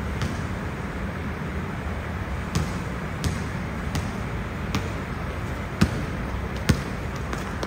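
A basketball bouncing on a hard court as a child dribbles it: about seven irregularly spaced bounces, the last two the loudest, over a steady background hiss.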